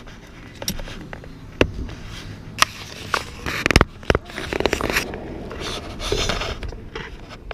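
Handling noises as work begins on a pickup's door: a few sharp clicks and knocks, the loudest just under four seconds in, then a stretch of scraping and rustling.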